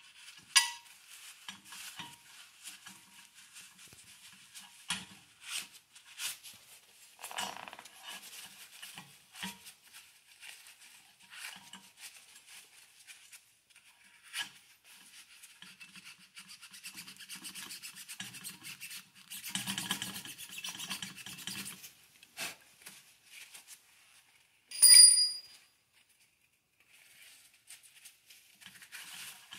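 Shop rag pushed with a screwdriver and rubbed around inside a Honda 400EX swingarm's bearing bore to clean it out after the old bearing was pressed out: uneven scraping and rubbing with occasional knocks and clicks. The loudest sound is a sharp ringing metal clink about 25 seconds in.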